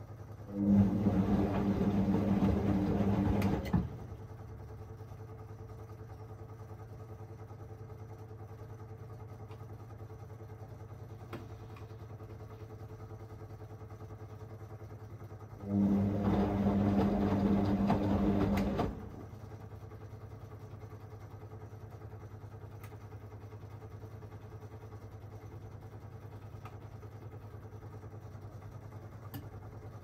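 Whirlpool Aqualine AWM1860 washing machine in its main wash on the Synthetics 40 programme: the drum motor turns the drum in two short spells of about three seconds, one near the start and one about halfway through. Between them there is a long rest with only a steady low hum, the gentle stop-start wash action of a synthetics cycle.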